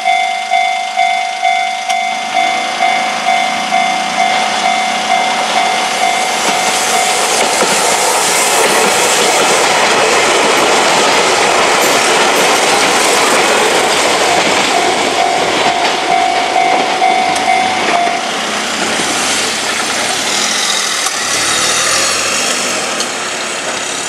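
Japanese level-crossing warning bell ringing in an even pulse, about two strokes a second, as an electric train passes over the crossing with a rush of wheel and rail noise. The train noise swells about 7 s in and fades. The bell stops about 18 s in as the crossing clears.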